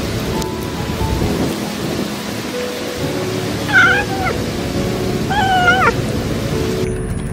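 A kitten meows twice, two short calls about a second and a half apart, over steady background music.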